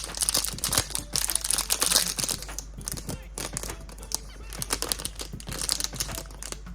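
Plastic packaging crinkling and rustling in bursts, with small clicks, as a gachapon toy is unwrapped. The rustling is heaviest in the first couple of seconds and comes back briefly near the end.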